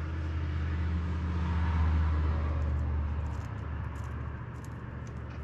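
A low vehicle-like rumble over a steady hum, swelling to a peak about two seconds in and then fading. A few faint small clicks come in the second half, from speaker-wire connections being twisted together.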